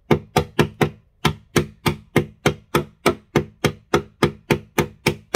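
Kitchen knife point striking a black plastic press-fit piece set in a wooden panel over and over: a steady run of sharp knocks, about three or four a second, with a brief gap about a second in. The blows are an attempt to drive the knife under the press-fitted piece and pry it loose.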